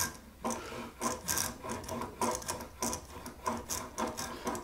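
Small spokeshave slicing wood from a guitar neck in quick repeated strokes, each a short rasping cut, a little under two a second.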